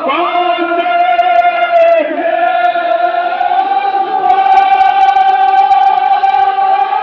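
A group of voices chanting a Kashmiri marsiya (Muharram elegy) in unison, holding long drawn-out notes. The pitch slides up at the start and shifts to a new held note about two seconds in and again about four seconds in.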